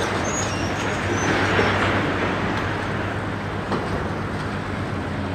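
Steady engine rumble with a low hum, typical of heavy diesel demolition machinery running on site.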